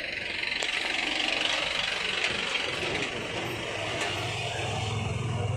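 Road traffic passing close by: a car drives away with tyre and engine noise, then a small goods truck's engine rumbles low and steady as the truck pulls past about four seconds in.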